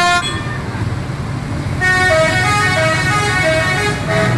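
Tour bus's multi-tone musical 'telolet' horn playing a short melody of stepping notes from about two seconds in, over the steady rumble of the bus engine and street traffic. The last note of an earlier horn phrase cuts off right at the start.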